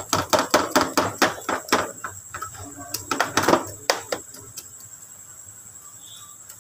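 A basting brush dabbing and tapping over cubed meat in a metal baking tray: a quick run of light clicks and taps, about six a second at first, thinning out and stopping about four seconds in.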